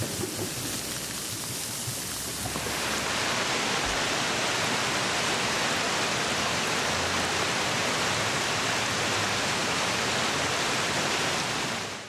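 Fountain water splashing, then from about three seconds in a louder, steady rush of water pouring down a wide stepped cascade.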